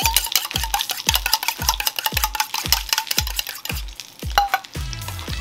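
A fork beating a raw egg in a small stainless steel bowl, clicking against the bowl in a quick, even rhythm of about three strokes a second, stopping about four seconds in.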